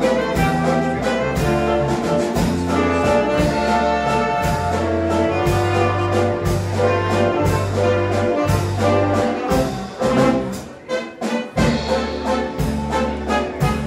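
Brass band music with trumpets and trombones over a steady beat and sustained bass notes; it thins out briefly about ten seconds in, then picks up again.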